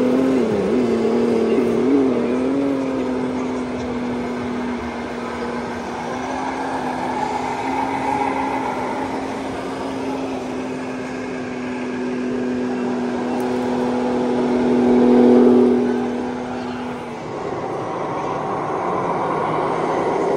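Scale RC truck's sound module playing a diesel engine sound: a steady humming note that wavers in pitch at first, swells to its loudest and then cuts off; a lower engine note comes in near the end. Voices murmur in the background.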